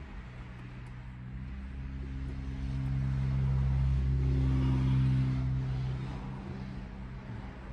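A low engine hum that grows louder over a couple of seconds, holds, then fades away.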